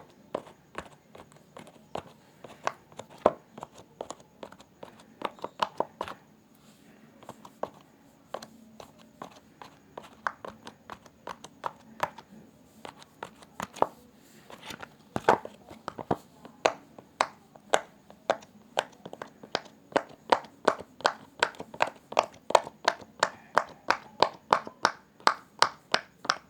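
Fidget toys being handled: a string of sharp plastic clicks and taps, scattered and irregular at first, then a quick, even run of about three clicks a second in the last third.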